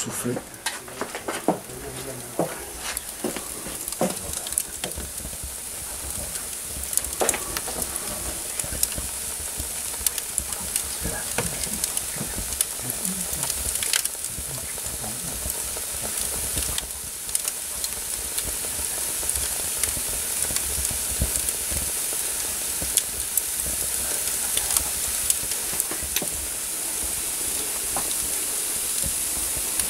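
Socca batter sizzling on its round socca plate in a wood-fired oven, with the embers crackling: a steady hiss sprinkled with sharp crackles that grows slowly louder. A few knocks in the first seconds.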